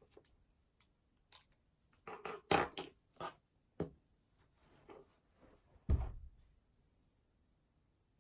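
Faint handling sounds at a study desk: a cluster of light knocks and rustles about two to three seconds in, a sharp click near four seconds, and a heavier thump about six seconds in, with quiet between.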